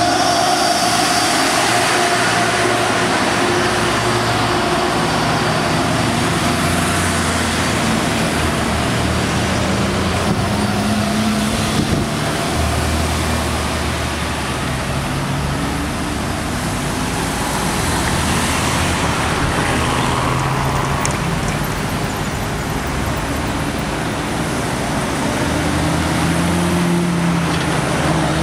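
Road traffic passing close by, one vehicle after another: diesel trucks, cars and a minibus, their engine notes shifting as each goes past.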